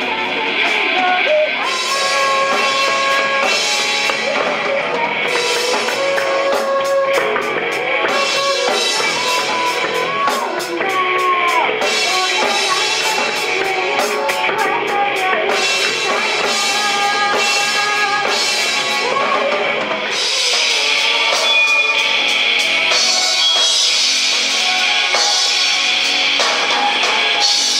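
A rock band playing: drum kit with cymbals, electric guitar and bass, with a melody line over them. About twenty seconds in, the music changes and the bottom end thins out.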